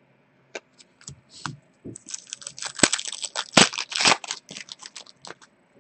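Foil wrapper of an Upper Deck hockey card pack crinkling and tearing as it is ripped open: a quick run of crackles, thickest in the middle.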